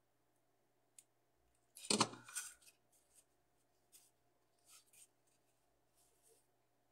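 Hands handling and positioning sheets of craft foam and clear acetate: one louder rustle about two seconds in, then a few light taps and rubbing sounds.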